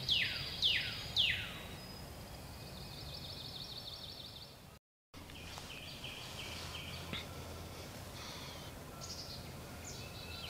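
Woodland songbirds singing: a run of quick downward-sliding whistles, then a fast high trill, and after a brief dropout about five seconds in, more short chirped phrases.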